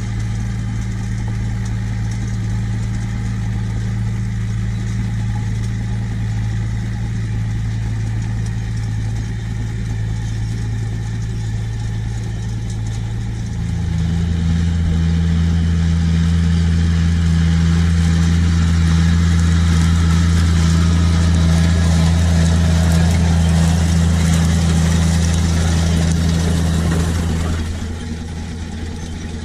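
Farm tractor diesel engine running steadily while pulling a seed drill. About halfway through the note turns deeper and louder as a tractor passes close, then drops back abruptly near the end.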